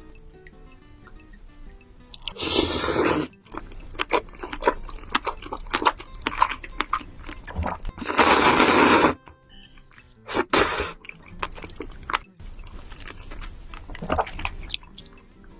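Close-miked eating of creamy cheese pasta: wet chewing with sharp mouth clicks and smacks, and two loud slurps about a second long, one near the start and one about halfway through. Quiet background music plays underneath.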